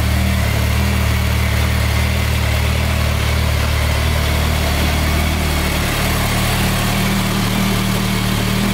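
BMW K1300S motorcycle's inline four-cylinder engine idling steadily, its low note shifting slightly about six seconds in.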